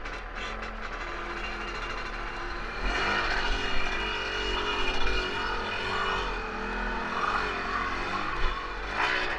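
Motorcycle engine running on a loose sand track, louder from about three seconds in.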